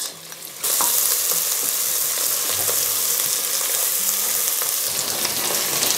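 Sliced onions with ginger-garlic paste frying in hot oil in a pot, a steady sizzle that starts suddenly about half a second in and is stirred with a wooden spatula.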